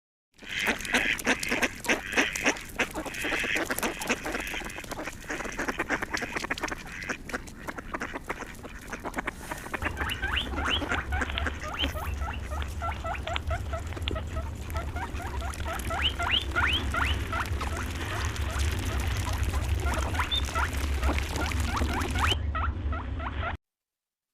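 A flock of poultry calling, with many short, rapid calls overlapping. From about ten seconds in, a steady low hum runs underneath. The sound cuts off suddenly near the end.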